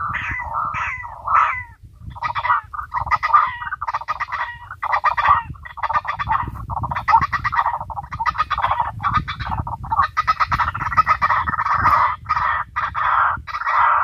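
Recorded white-breasted waterhen (ruak-ruak) calls played through a small horn loudspeaker as a trapping lure: a fast, unbroken run of repeated call notes, with a low rumble underneath.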